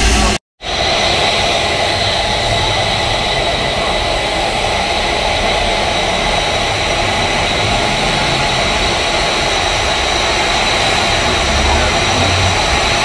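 Steady hiss of steam escaping from the standing narrow-gauge steam tank locomotive Lyd (No. 190), after a brief break in the sound near the start.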